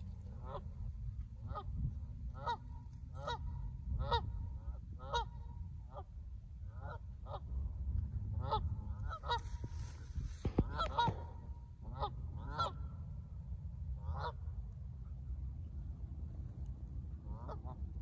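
Canada geese honking, a run of short calls about one a second that pauses after about fourteen seconds and picks up again briefly near the end.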